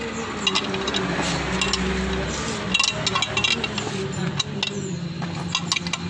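Metal hand tools and CVT parts of a Yamaha Lexi scooter clinking and knocking in short, irregular strikes as the transmission is taken apart, over a steady low hum.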